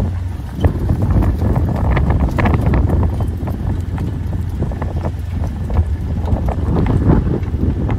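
Wind buffeting the microphone over a steady low hum, with irregular clicks and knocks.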